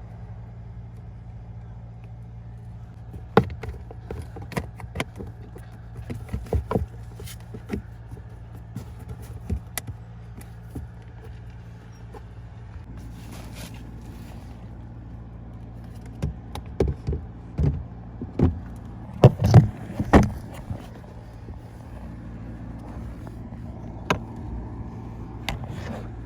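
Scattered sharp clicks and knocks of plastic car interior parts being handled, over a steady low hum inside the car. The loudest cluster of knocks comes a little past the middle, with a brief hiss shortly before it.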